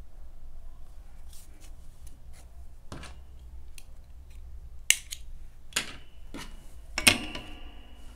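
Handling of a crochet piece and its tools while yarn ends are woven in: a scatter of soft clicks and taps, with two sharper ones about five and seven seconds in. The later one is a metallic clink that rings briefly.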